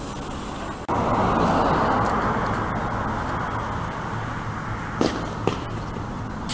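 Outdoor street ambience with traffic noise. It rises sharply about a second in and fades slowly over the next few seconds, with two sharp clicks about half a second apart near the end.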